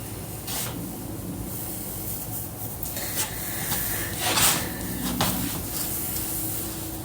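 Scattered knocks, clicks and rustling of things being handled, loudest in a burst about four and a half seconds in.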